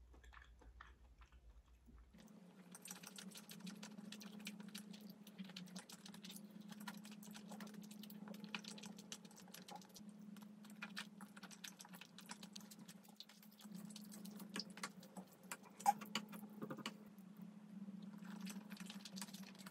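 Close-miked mukbang eating sounds of soft, chewy rice cakes in basil cream sauce: a dense run of small, wet mouth clicks and smacks. These begin about two seconds in, over a faint, steady low hum.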